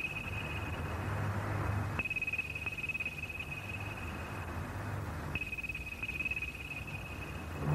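Desk telephone with an electronic ringer ringing: a steady high tone in rings about a second long, one every three seconds or so, over a faint low hum.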